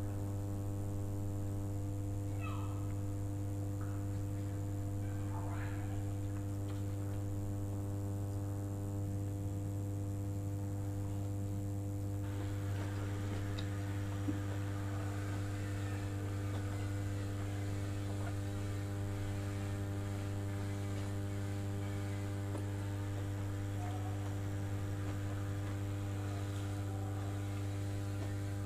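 Steady electrical mains hum with a stack of evenly spaced overtones, the loudest sound throughout. Under it are faint soft sounds of a bao bun being handled and eaten, which pick up about twelve seconds in.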